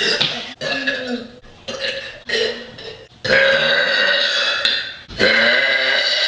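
A girl burping loudly, several times: a few short burps, then two long drawn-out burps in the second half.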